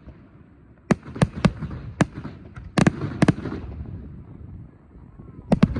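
Aerial fireworks bursting overhead: about eight sharp bangs at irregular intervals, each with a short rumbling tail. After a lull of about two seconds, a close pair of bangs comes near the end.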